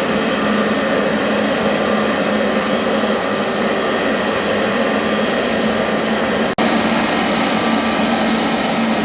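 Jet airliner engines heard loud and close, a steady dense rush with a low hum under it. The sound cuts out for an instant about six and a half seconds in, then carries on the same.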